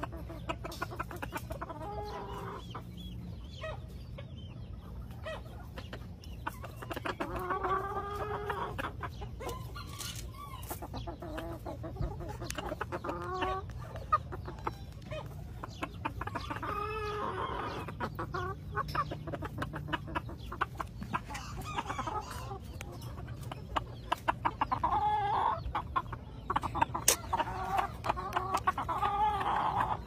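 Chickens clucking and calling, with several drawn-out calls a few seconds apart.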